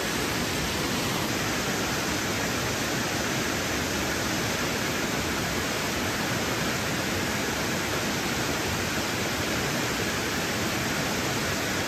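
Shallow stream rushing steadily over a rocky riffle: a constant, even hiss of moving water.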